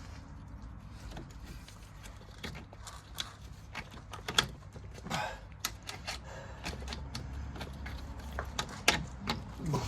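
Irregular clicks and clanks of hand tools and metal car parts being handled during work on a car's boost pipes, over a low steady hum, with a few sharper knocks and short scrapes.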